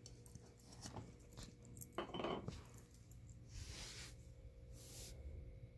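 Golden retriever working a plastic treat puzzle toy: light plastic clicks and clinks as its parts are nosed and pawed, with a louder clatter about two seconds in and two short rushes of noise later on.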